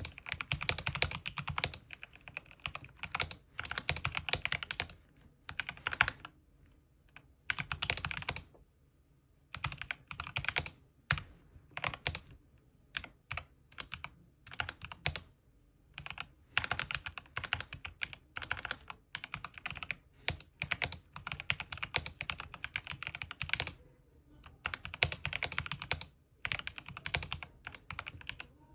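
Typing on a Corsair K70 mechanical keyboard: fast runs of key clicks in short bursts with brief pauses between them.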